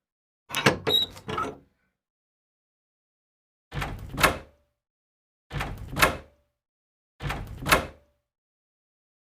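A door being worked in four separate takes with silence between them. The first is a quick run of three latch clicks. The other three are alike: a short low rumble of the door moving, ending in one sharp click or knock.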